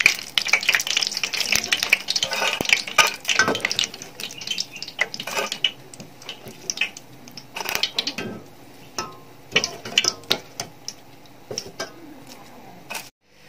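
Hot oil crackling and popping in a steel kadai as a wire-mesh spider skimmer scoops out fried pakkavada strips and curry leaves, the skimmer clinking and scraping against the pan. The crackling is dense at first and thins to scattered pops and knocks after a few seconds.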